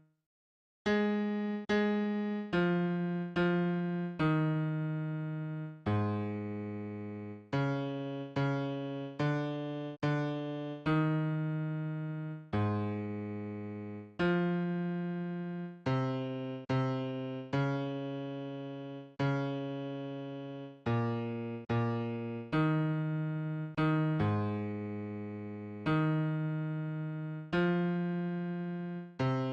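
Bass line of a choral hymn arrangement, played one note at a time on an electric piano sound. After a short break about half a second in, it runs in an even sequence of low notes, roughly one to two a second, each struck and fading.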